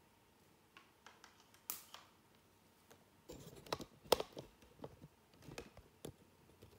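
Irregular handling clicks, taps and knocks, with a cluster of louder knocks about four seconds in.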